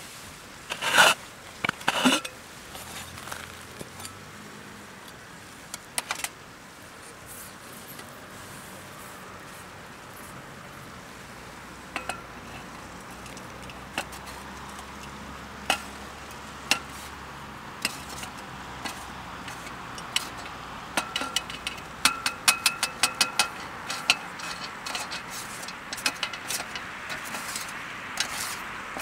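Metal cooking utensils knocking, clinking and scraping on a metal pan or grill, with two loud knocks about a second in and a run of quick ringing taps in the last third. A steady hiss grows louder toward the end.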